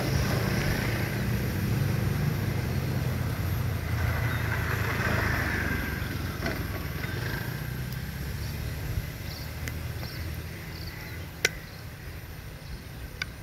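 Road traffic: vehicle engines running and slowly fading away, with a sharp click near the end.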